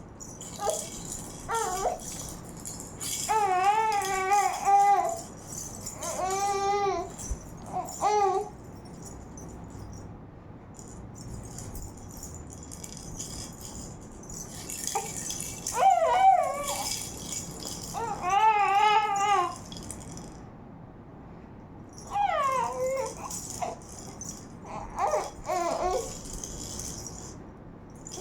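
A toy rattle is shaken in repeated bursts. A baby gives high, wavering squeals and babbling calls about seven times over it.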